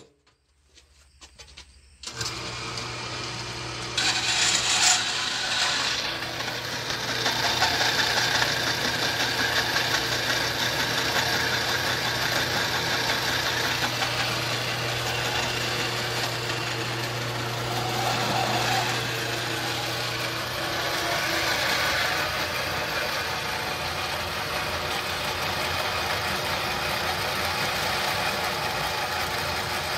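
Dayton horizontal metal-cutting band saw switched on about two seconds in, its electric motor humming with the blade running. From about four seconds the blade cuts steadily through an aluminium extrusion, louder and noisier.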